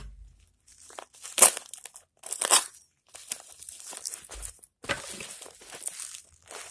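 Plastic shipping wrap of a parcel being torn open and crinkled by hand. There are two sharp rips about one and a half and two and a half seconds in, then a longer stretch of irregular crinkling.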